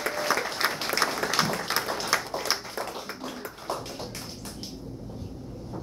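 Audience applauding, the clapping thinning out and dying away about four and a half seconds in.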